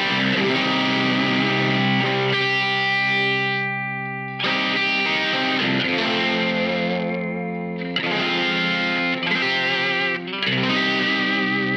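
Electric guitar played through a Weird Noise Effects distortion pedal: sustained distorted chords ringing out. A chord fades away and a new one is struck about four and a half seconds in, the pitch wavers for a couple of seconds, and further chords are struck near the end.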